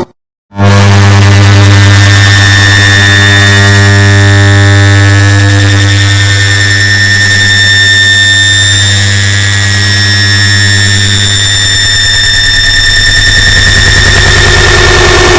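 An air conditioner's start-up sound, multiplied and blown out into a very loud, distorted drone: a heavy low hum with many steady tones stacked above it. It starts after a short moment of silence.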